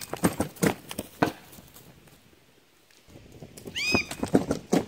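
A dog's short high-pitched bark at the start and again about four seconds in, with sharp knocks and thumps in between. The loudest knocks come near the end as the dog hits the flyball box and the tennis ball is launched.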